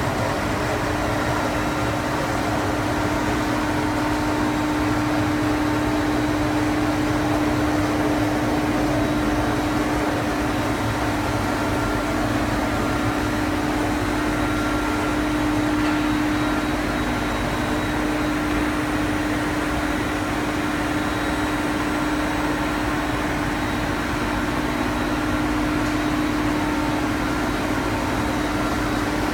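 CNC tool grinding machine running, a steady hum with one strong constant tone over an even whir.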